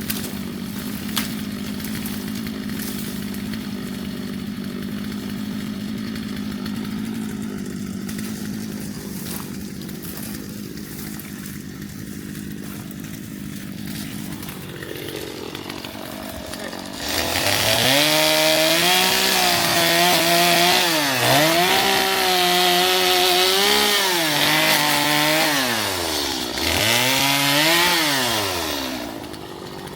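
Gas chainsaw idling steadily, then revved up about halfway through and run at high speed for roughly twelve seconds, its pitch dipping and climbing back four or five times, before it drops back to idle near the end.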